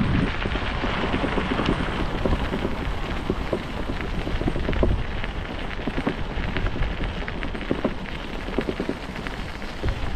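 Bicycle tyres rolling over a path strewn with winter grit, giving a steady rumble peppered with many small crackles and clicks, with wind buffeting the microphone.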